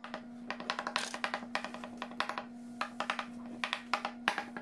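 Metal fork pricking thin rolled-out pizza dough, its tines tapping through to the countertop in quick runs of sharp clicks with short pauses between them.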